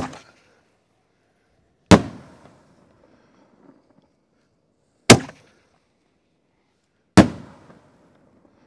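Four loud, sharp bangs from 5-inch Nishiki willow canister shells bursting in the air, a few seconds apart, each trailing off in a short echo.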